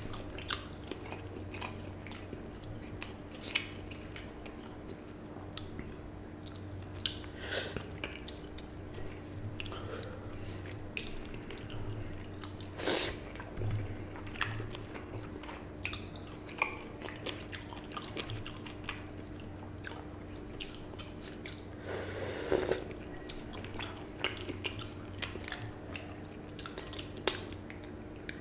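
Close-miked eating of panta bhat by hand: fingers squelching through water-soaked rice on a plate, with wet smacks and chewing in many short, irregular clicks. A steady low hum runs underneath.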